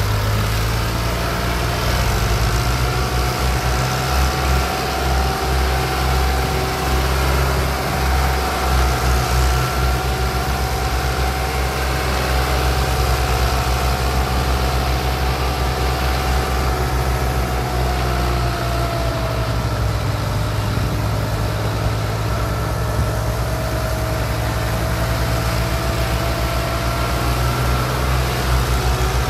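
Diesel engines of a Fiat 480 and a Fiat 640 tractor running hard under heavy load, dragging a loaded sugarcane trolley stuck in mud. The engine note is steady, sags about two-thirds of the way through and then picks back up.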